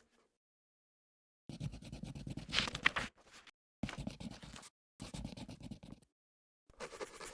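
Pencil scratching on paper in five quick scribbling bursts, each up to about a second and a half long, separated by short gaps of dead silence. The first begins about a second and a half in, and the loudest is the first and longest.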